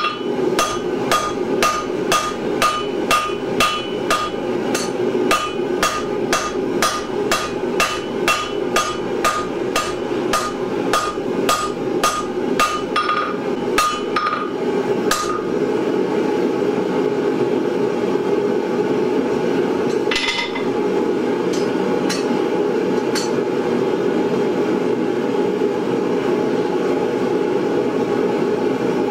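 Hand hammer striking red-hot steel bar on a steel anvil, about two ringing blows a second, as a thin flower stem is forged out. The blows stop about halfway, with one more knock a little later, leaving the steady rushing noise of the propane gas forge burner.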